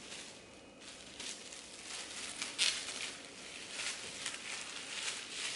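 Plastic wrap crinkling in short, irregular rustles as it is folded and pressed around a slab of dough.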